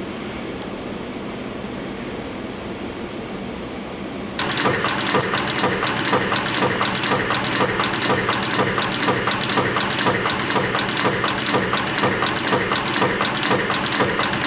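A YHM FB-220 spring forming machine's press and bending units running at high speed, a rapid, even rhythm of sharp mechanical strokes, several a second, as it shears and bends wire into springs. Before that, a steady machine hum, with the strokes starting suddenly about four seconds in.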